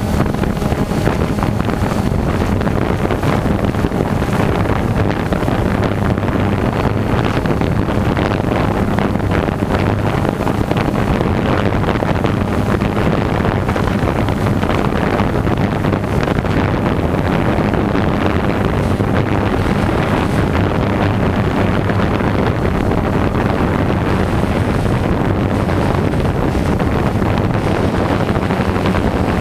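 DJI quadcopter drone's propellers buzzing steadily with a low hum, heard through the drone's own camera microphone, with wind buffeting the microphone.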